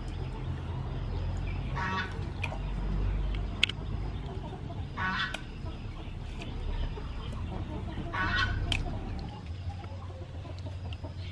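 Chickens clucking, three short calls a few seconds apart, over a steady low background rumble with a few sharp clicks.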